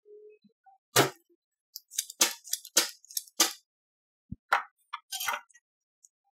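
Spring-loaded desoldering pump clicking and snapping repeatedly while the solder is cleared from a burnt electrolytic capacitor's legs. It makes a string of sharp clicks, the loudest about a second in.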